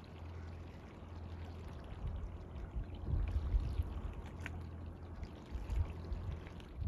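Water lapping and trickling against a boat's hull, over a low steady rumble.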